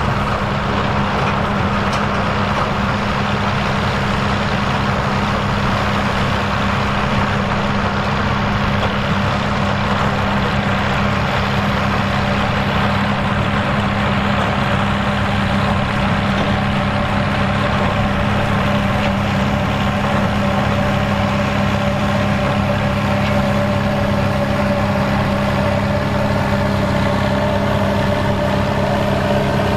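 Fiat 110-90DT tractor's diesel engine running steadily under work, its note rising over the last few seconds.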